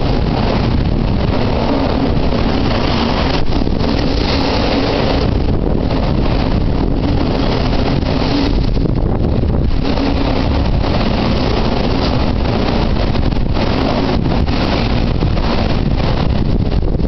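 Typhoon wind buffeting the microphone: a loud, steady roar of storm noise with deep rumble.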